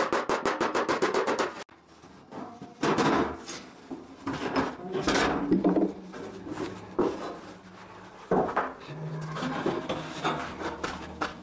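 Rapid, even hammer taps on a car's steel door skin, about seven a second, stopping abruptly about a second and a half in. Then irregular clanks, knocks and scraping as the loose sheet-metal door skin is handled.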